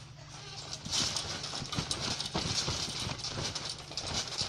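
Children bouncing on a garden trampoline: a run of short, irregular thuds on the mat, about two a second, starting about a second in.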